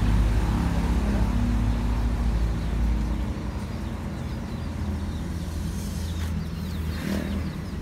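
A motor vehicle's engine running nearby as a low, steady hum that grows fainter after about three seconds.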